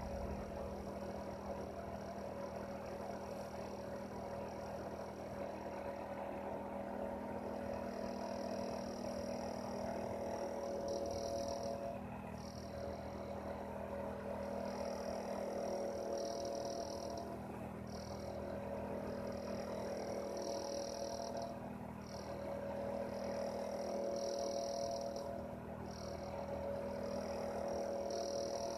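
Heater running with a steady, even hum. From about a quarter of the way in, a high-pitched sound comes and goes every second or two over the hum.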